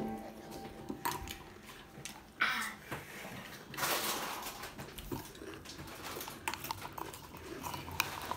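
A plastic spoon clicking and scraping in a glass mason jar of milk and soaked Oreo pieces, with mouth noises of eating. There are a couple of short hissy bursts about two and a half and four seconds in.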